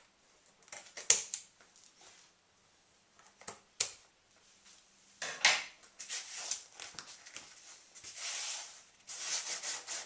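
An overhanging end of self-adhesive Velcro strip being cut and handled: a few sharp clicks in the first four seconds, then rustling and rubbing from about halfway.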